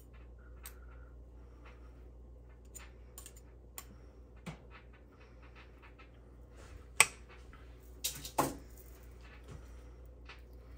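Kitchen handling noise: scattered light clicks and clinks of a utensil against a mixing bowl as a sticky sausage mixture is worked. The sharpest clink comes about seven seconds in, with two more about a second later.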